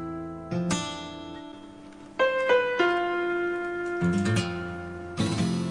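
Slow background piano music: notes and chords struck a second or so apart and left to ring out.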